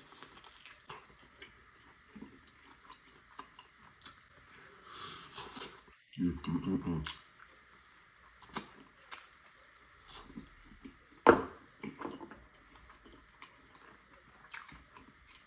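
Close-miked chewing of sticky BBQ ribs: wet mouth sounds, lip smacks and small clicks. A short voiced murmur comes about six seconds in, and a single sharp crunch or click about eleven seconds in.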